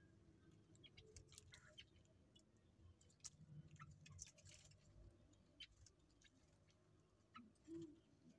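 Faint, irregular clicks and taps of birds pecking at pellet feed, over a low steady hum.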